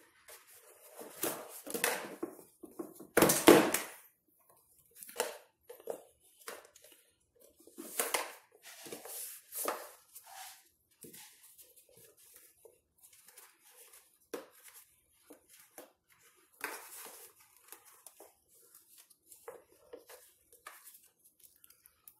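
Foam seat insert of an Ingenuity Baby Base 2-in-1 booster seat being worked against the seat's hard plastic shell: irregular rubbing and scraping noises, loudest about three seconds in.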